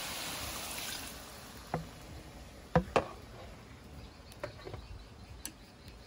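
Cooking clatter: a faint hiss that fades over the first second, then a few sharp knocks, the two loudest close together about three seconds in.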